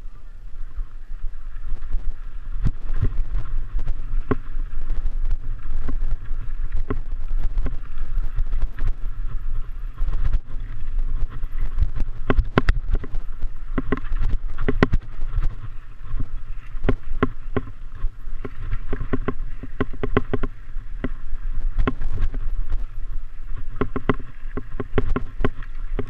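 A mountain bike rattling and clattering over a rocky trail on a fast descent: irregular knocks and rattles from the frame and wheels, over a steady low wind rumble on the microphone.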